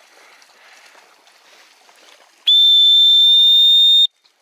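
Dog whistle blown in one long, steady, shrill note lasting about a second and a half, cutting off abruptly.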